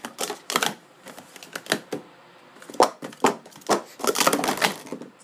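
William Polk Pro Series 2 plastic sport-stacking cups clacking as they are rapidly upstacked and downstacked on a mat, in quick clusters of sharp clicks with short pauses between them.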